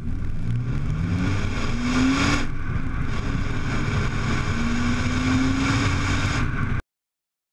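Exhaust of a Peugeot 406 coupé's 3.0-litre V6 through a Supersprint silencer, heard close at the tailpipe while accelerating. The revs climb, drop briefly about two and a half seconds in, then climb again. The sound cuts off shortly before the end.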